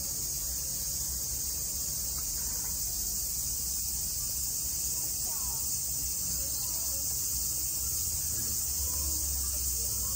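Steady, high-pitched drone of an insect chorus, unbroken throughout, with faint short sliding calls in the background.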